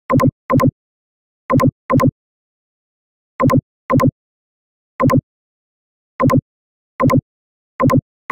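Computer mouse button clicking about ten times at uneven intervals, each a quick press-and-release double click, with dead silence between clicks.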